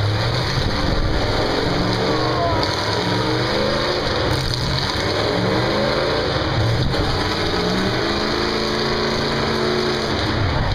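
Engines of several full-size demolition derby cars running and revving, their pitches rising and falling and overlapping.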